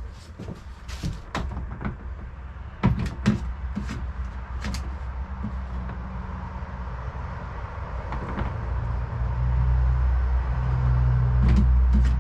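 Clicks and knocks of hard plastic parts being handled and fitted together, two louder knocks about three seconds in. Then a low, steady motor-vehicle engine rumble builds about eight seconds in and becomes the loudest sound.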